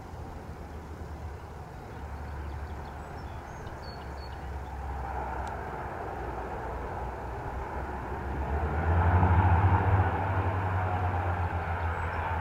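de Havilland Canada DHC-6 Twin Otter's two Pratt & Whitney PT6A turboprop engines running as it taxis, a steady propeller drone that grows louder to a peak about nine seconds in.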